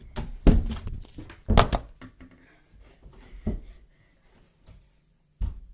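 A series of sharp knocks and thumps, the loudest two about half a second and a second and a half in, then a few fainter ones spread out with quiet between.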